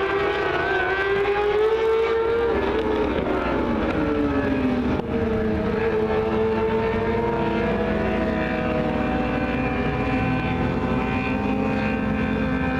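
Several mini sprint race cars running together on a dirt oval. The overlapping engine notes rise and fall as the cars accelerate down the straights and lift through the turns.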